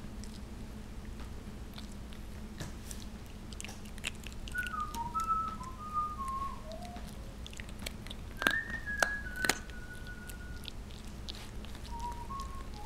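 Shiba Inu puppy chewing a crispy stick treat, with a run of small crunches and clicks and a few sharper snaps about two-thirds of the way through. Over it come three spells of thin whistled notes that step and slide downward in pitch.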